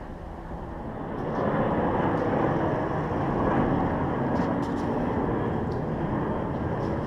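An engine running nearby, its noise swelling about a second in and then holding steady, with a few faint clicks over it.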